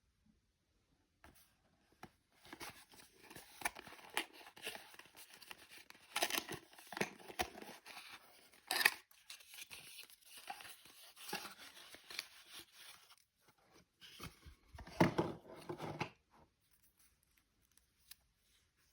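Plastic toy packaging being unwrapped by hand: a run of crinkling rustles and short tearing rips that stops a couple of seconds before the end.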